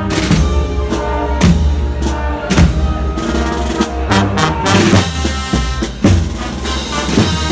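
Brass band playing a march: trombones, euphoniums, tubas, trumpets and saxophones sound held chords over bass drum and snare drum strokes that come about once a second.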